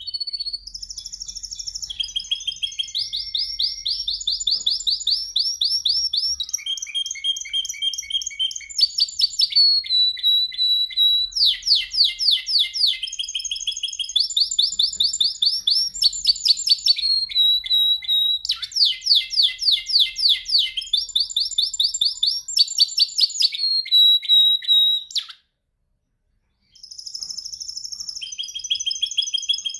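Male canary singing a long song of rapid rolling trills and clear whistled notes, each phrase a fast run of repeated notes, with a short pause about 25 seconds in before the song resumes.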